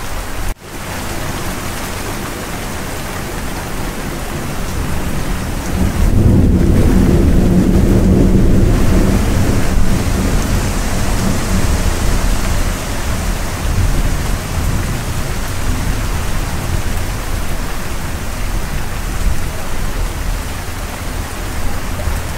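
Steady rain with a low rumble of thunder that swells about six seconds in and dies away over the next few seconds. The sound drops out for an instant about half a second in.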